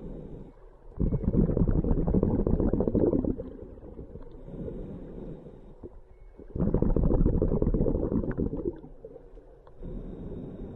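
Scuba diver breathing through a regulator underwater, in a slow steady cycle: a quieter inhale through the regulator, then a loud rush of bubbling exhaust lasting about two seconds. The exhale comes twice, and another inhale starts near the end.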